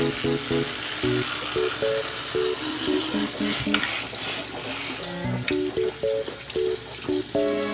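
Steady hiss of running water, under background music of short plucked notes in a bouncing melody; two sharp clicks about halfway through.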